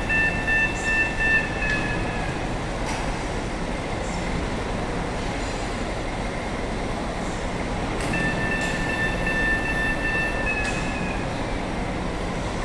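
Steady rumble of heavy machinery. A high, steady whine sounds over it twice: once at the start for about two seconds, and again about eight seconds in for about three seconds.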